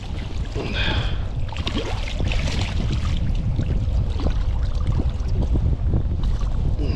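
Wind rumbling on the microphone over water sloshing and splashing against a kayak, with scattered small knocks and clicks.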